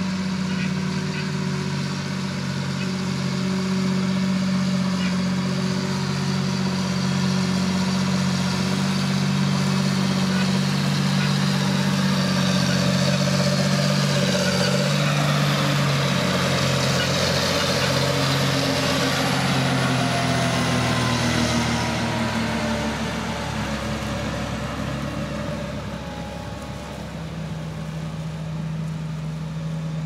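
Large John Deere tractor's diesel engine running under load as it pulls a cultivator across stubble. Its steady note falls away after it passes close by, about halfway through, and it grows quieter.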